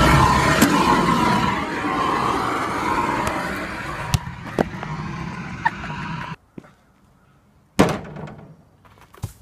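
Car cabin road noise, then a basketball bouncing on pavement with a few sharp smacks. After a sudden drop to quiet, the ball hits the backboard and rim with a loud thud, followed by a smaller knock near the end.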